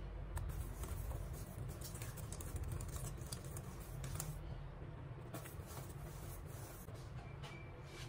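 Wire whisk stirring thick cake batter in a stainless steel bowl, its wires scraping and clicking against the bowl at irregular moments.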